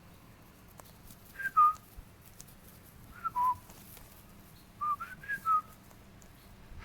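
Whistling in three short phrases of clear whistled notes, each mostly stepping down in pitch, the last phrase four notes long.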